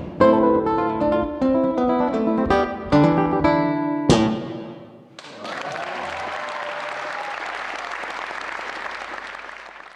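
Nylon-string classical guitar played briskly in plucked notes, ending on a sharp final stroke about four seconds in and dying away. About a second later an audience starts applauding steadily, fading near the end.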